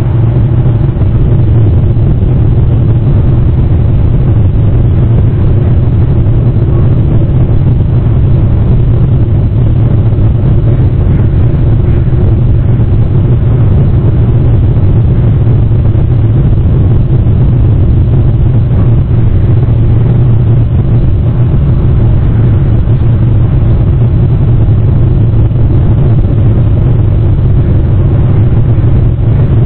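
Loud, steady low rumble with a constant hum, unchanging throughout.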